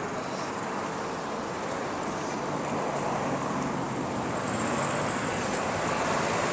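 Steady traffic noise of a busy road, with cars and motorcycles passing close by. It gets a little louder about four seconds in, when a thin high whine joins it.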